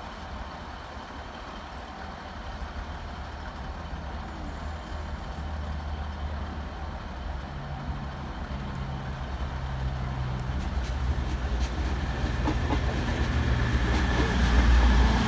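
CrossCountry Voyager diesel multiple unit approaching and running past, its underfloor diesel engines droning low and growing steadily louder as it nears.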